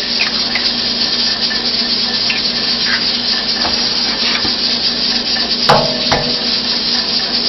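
Steady sizzling hiss of food frying on the stove, with a few light clicks and taps as eggs are cracked into a bowl.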